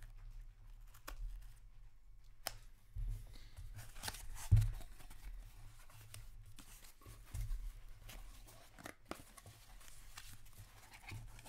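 Small cardboard box being torn and pried open by hand: cardboard flaps ripping and scraping, with handling knocks, the loudest a sharp knock a little before the middle.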